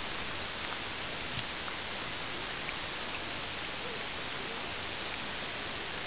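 Steady hiss, with a few faint clicks of a cat gnawing on a corn cob.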